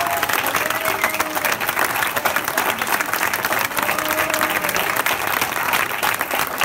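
A crowd applauding: dense, steady clapping from many hands, with a few faint voices mixed in.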